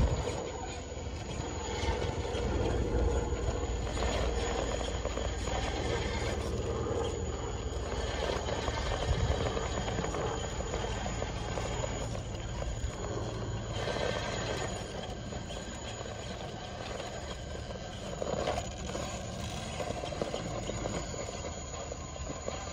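RC rock crawler's electric motor and geared drivetrain whirring as it crawls over rock, with the tyres scraping and knocking on the stone.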